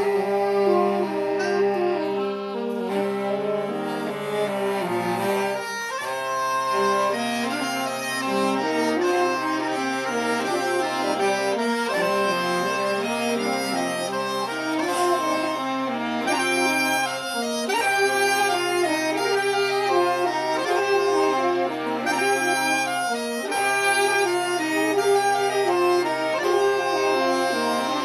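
Isan folk music played on a reed wind instrument: a quick melody and chords over a steady low drone that keeps sounding throughout.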